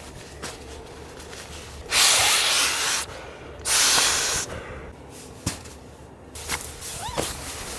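Two short, loud bursts of hissing, each about a second long, with a brief pause between them.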